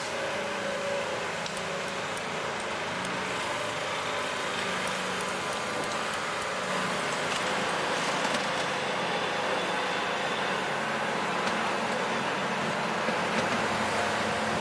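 Steady machinery noise, an even hiss with a faint hum under it, unchanging throughout.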